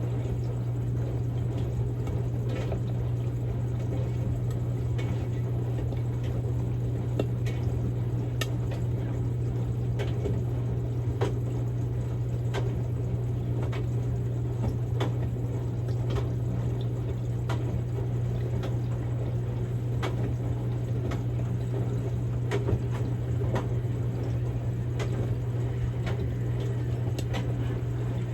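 Samsung Grande front-loading washing machine running a quick-wash cycle with a padded jacket: water sloshing in the tumbling drum over a steady motor hum, with irregular light clicks throughout.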